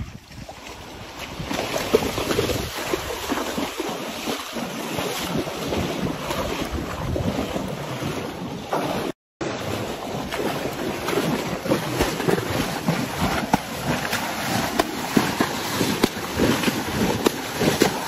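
Sea water splashing as horses wade through the shallows, with wind buffeting the microphone.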